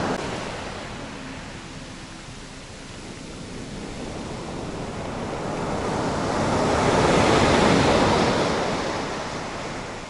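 Mediterranean surf breaking on a sandy beach. The wash swells to a peak about seven seconds in, then draws back.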